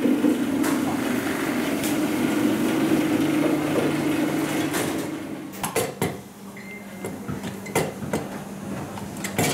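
Bagel-forming machine running with a steady hum, which stops about five and a half seconds in; a few sharp metal knocks and clatters follow.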